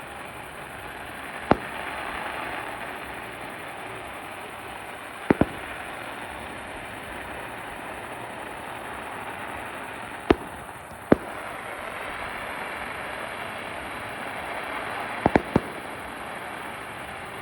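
Aerial fireworks shells bursting in sharp bangs, about eight in all: singly, in a quick pair and in a quick triple near the end. A steady hiss runs between the bangs.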